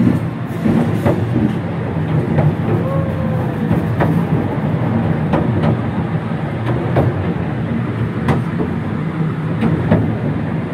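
Cable-hauled inclined railway carriage running down a very steep track: a steady rumble of wheels on rail, broken by sharp clicks every half second to a second as the wheels cross the rail joints.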